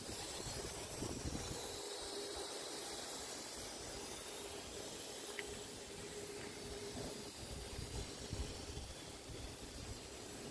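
Faint steady hiss of outdoor background noise, with a faint steady hum underneath for most of the time.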